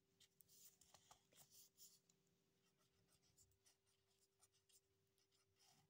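Pen scratching faintly on notebook paper in short strokes as a word is handwritten, over a steady hum.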